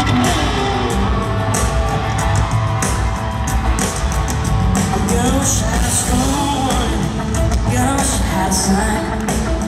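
Live pop-rock band playing loud through a concert PA: electric guitar strumming over drums, with a male lead vocal singing.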